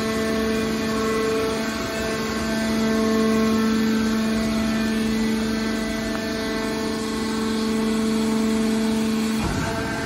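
Hydraulic power unit of a metal scrap baler, an electric motor driving a hydraulic pump, running with a steady hum and whine, with a brief break near the end.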